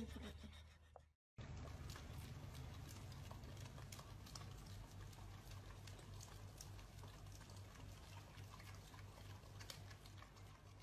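Faint, quick wet clicks of two dogs licking an ice cream cone, over a low steady hum. The sound drops out briefly about a second in.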